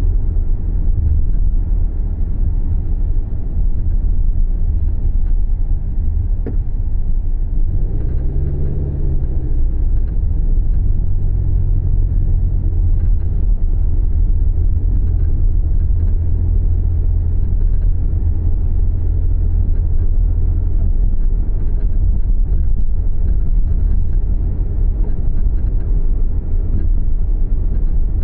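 Subaru Levorg driving, a steady low rumble, with a brief rising and falling tone about eight seconds in. This is the abnormal driving noise being recorded, its cause not identified.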